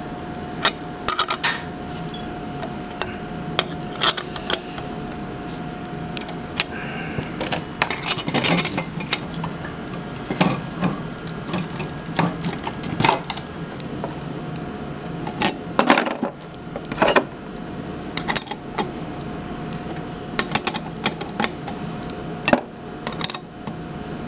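Irregular metallic clinks and knocks as a plumber's test plug is loosened by its wing nut and worked free, with a faint steady hum underneath.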